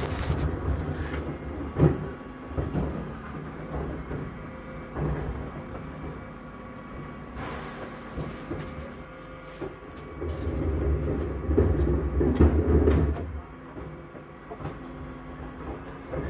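Bin lorry engine running, heard from indoors through a window, with scattered knocks and clatters of wheelie bins being handled. A louder low rumble swells from about ten to thirteen seconds in.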